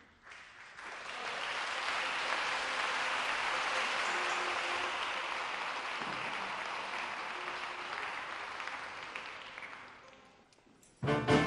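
Audience applauding in a concert hall, building over the first two seconds and dying away about ten seconds in. The orchestra starts playing suddenly right at the end.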